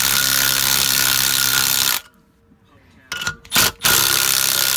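Power tool running loud and steady, cutting off abruptly about two seconds in, then two short bursts and a longer run near the end.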